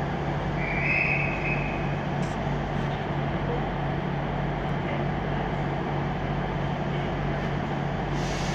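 Class 158 diesel multiple unit standing at the platform with its diesel engines idling: a steady low drone with an even hum. About a second in, a brief high-pitched tone sounds over it.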